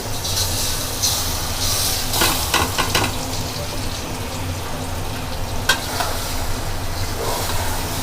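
Marinated beef frying in hot oil with browned onions, sizzling steadily, with a spoon clattering against the pot in a quick run of strokes about two to three seconds in and one sharp knock a little before six seconds.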